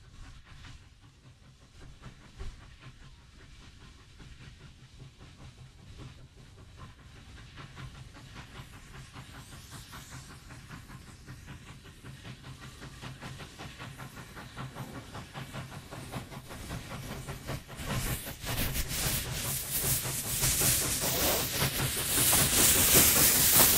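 Victorian Railways K class 2-8-0 steam locomotive approaching under steam, its rhythmic exhaust beats growing steadily louder. As it draws close near the end there is a loud hiss of steam escaping at the cylinders.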